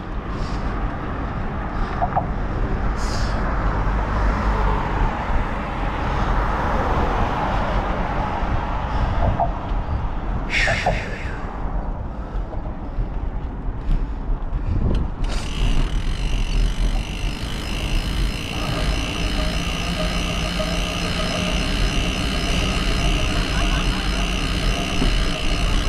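Wind buffeting the microphone and tyre and road noise from a bicycle ridden on a paved road. From about fifteen seconds in, a steady high buzz joins it: the rear hub's freewheel ratcheting as the rider coasts.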